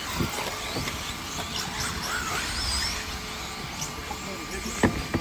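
Electric RC buggies running on a dirt track: high motor whines that rise and fall over a steady noise, with one sharp knock near the end.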